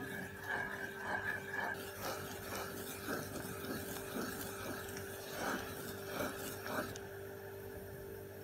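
A spoon stirring a thin chocolate milk-and-butter mixture in a granite-coated saucepan, scraping the pan in rhythmic strokes a little under two a second. The strokes stop about seven seconds in. The mixture is being stirred over the gas until it comes to the boil.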